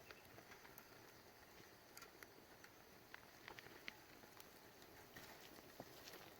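Faint crackling of a wood fire burning in a home-made fire can, with irregular small pops and snaps over a low hiss.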